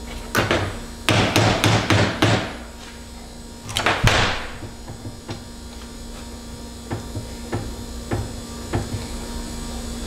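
Flathead screwdriver prying and scraping at a cut, crimped hydraulic hose ferrule clamped in a steel bench vise, working it loose from the fitting: a quick run of grating metal scrapes in the first couple of seconds, another scrape ending in a sharp metal clack about four seconds in, then scattered light clicks. A steady hum runs underneath.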